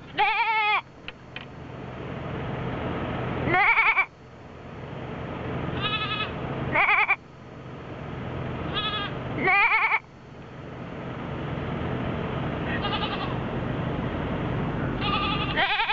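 Goat bleating over and over, each call a short wavering bleat, about five loud ones a few seconds apart with fainter ones in between. A steady noise swells slowly between the calls.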